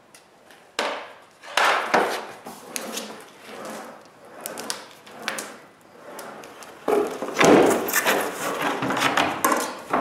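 Hand J-roller rolled in repeated strokes over a formica laminate sheet, pressing it down onto contact cement. The strokes get longer and louder near the end.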